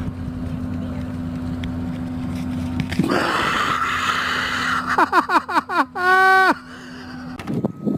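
A steady low hum, then from about three seconds a rush of noise. A run of short laughs follows, then a single held high cry about six seconds in, as a woman is knocked down by a dog she is running with.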